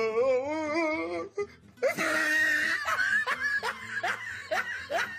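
Someone laughing: a long warbling laugh at the start, then a run of short laughs, over background music.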